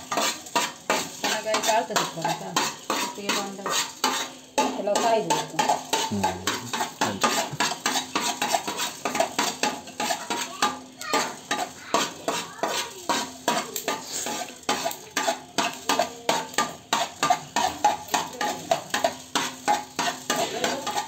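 A metal spoon or ladle stirring and scraping in a cooking pan in regular strokes, about two to three a second, with food frying in the pan.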